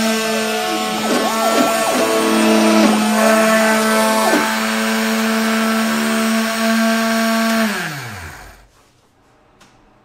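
500 W DC CNC spindle motor running with a steady whine, while the machine's stepper motors add tones that sweep up and down in pitch as the axes move. About eight seconds in, the spindle is switched off and winds down, its pitch falling away, leaving a few faint clicks.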